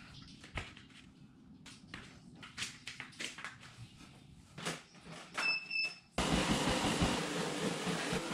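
Faint scattered knocks and shuffles of someone stretching and squatting on an exercise mat, with two short high beeps a little after five seconds in. About six seconds in the sound cuts to a treadmill running, a loud steady noise of belt and motor.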